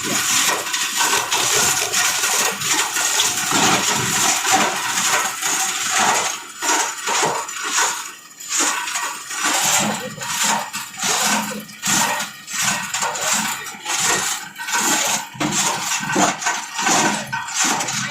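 Plastic scrap grinder chopping plastic pieces: a dense, irregular clatter and crackle of plastic breaking up inside the cutting chamber, easing briefly about eight seconds in.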